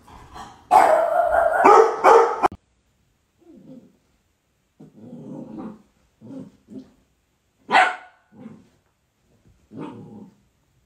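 A dog barking and growling: a loud stretch of about two seconds near the start, then a string of short, separate barks and growls with silent gaps between them.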